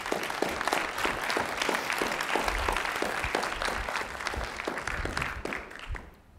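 Audience applauding with many dense hand claps, dying down near the end.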